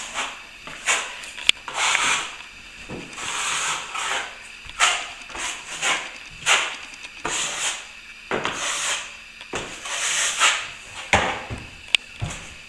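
Plastering tool scraped across a plasterboard wall in a series of short rasping strokes, working the patch over a taped crack after its first coat has dried, with a few sharp clicks. This is the next coat going on before the third.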